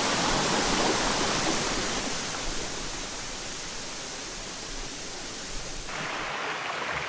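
Waterfall on a small river: a steady rush of falling water that grows fainter over the first few seconds, then changes abruptly about six seconds in.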